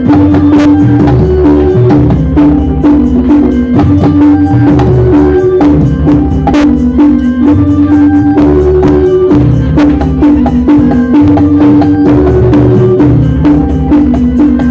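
Loud music track: a repeating melody of short and held notes over a deep bass, with busy drum and woodblock-like percussion hits throughout.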